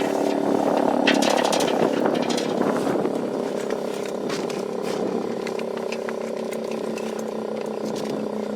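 Federal Signal 3T22 three-tone fire siren sounding a steady multi-tone chord with a pulsing throb, growing somewhat quieter over the first few seconds, with scattered sharp clicks over it.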